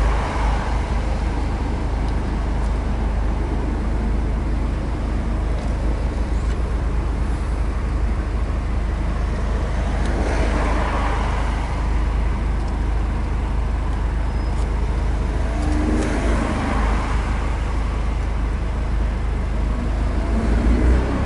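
Mazda MX-5 NC's four-cylinder engine idling with the top down while the car waits at a junction. Other cars pass by several times, each rising and fading.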